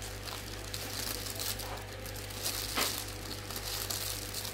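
Thin clear plastic bag crinkling and rustling as hands untie its knot, in irregular crackles with one sharper rustle nearly three seconds in.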